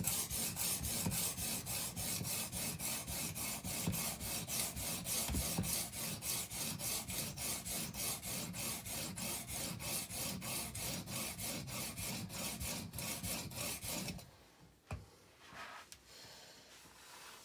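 An 80-grit diamond matrix stone on an Edge Pro Apex guide arm grinding back and forth across a steel chef's knife, in quick, even strokes, several a second, wearing down the bevel shoulders to thin the blade. The grinding stops suddenly about fourteen seconds in, followed by a few faint knocks.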